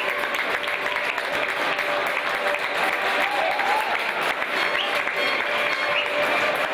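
Stadium crowd applauding steadily as the teams walk out onto the pitch, with music faintly underneath.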